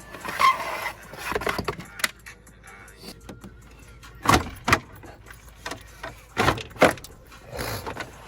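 Clinks and knocks of tools and metal parts being handled in a car's engine bay, including two pairs of sharp knocks about half a second apart, with some scraping and rustling in between.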